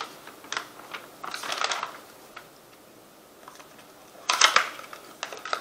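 Packaging of a small beauty product being handled and opened: scattered clicks and rustles. The loudest crackle comes a little past four seconds in.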